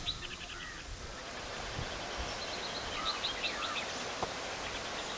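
Birds chirping in several runs of quick, repeated high notes, over a steady wash of outdoor background noise.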